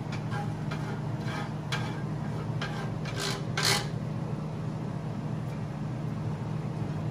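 Wooden slotted spatula scraping and rubbing butter across a nonstick grill pan in short strokes, with a couple of louder scrapes a little past halfway. A steady low hum runs underneath.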